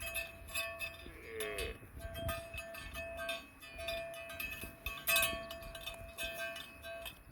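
Cowbells on grazing cattle clanking irregularly, in many short knocks and rings. A short, wavering animal call comes about a second in.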